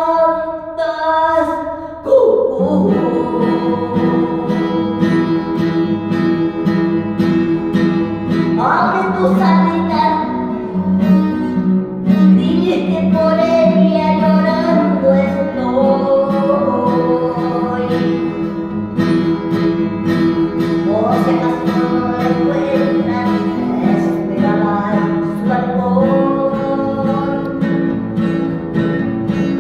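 A woman singing a Spanish song while strumming chords on an acoustic guitar. It opens on a held sung note, and the guitar strumming comes in about two seconds in and carries on under her voice.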